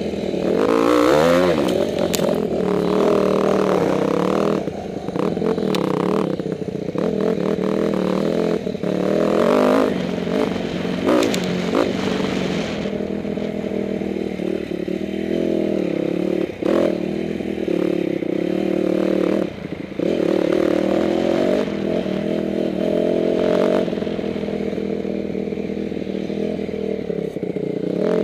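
Dirt bike engine revving up as the bike pulls away about a second in, then running with revs rising and falling as it rides a rough dirt trail, with knocks and clatter over the bumps.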